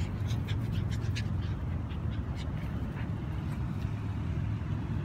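Toy poodle puppies giving a quick run of short, high-pitched yips during the first second and a half, with one more about three seconds in, over a steady low rumble.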